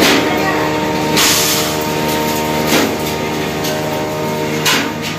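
A vehicle's engine running at a steady speed, a constant droning hum, with a few short bursts of rushing noise.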